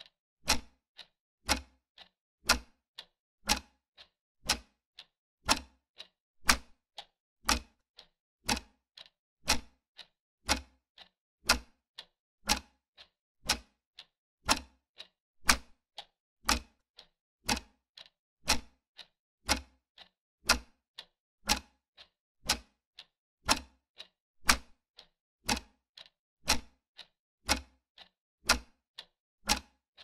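Clock tick-tock sound effect: sharp clicks two a second, alternating a stronger tick and a softer tock, marking the seconds of a countdown timer.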